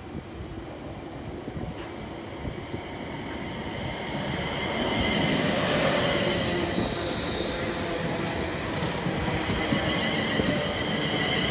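Two coupled London Northwestern Railway Class 350 Desiro electric multiple units (350111 and 350241) pulling into the platform to stop. The rumble grows louder from about four seconds in as the cars pass close by, with a steady high whine above it.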